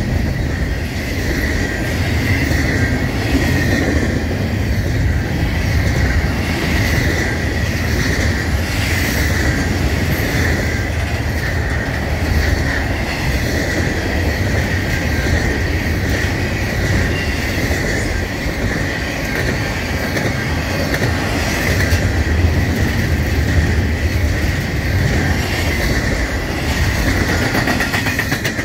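Double-stack intermodal well cars of a freight train rolling past at track side: a steady low rumble of steel wheels on rail with a continuous high-pitched wheel squeal running over it.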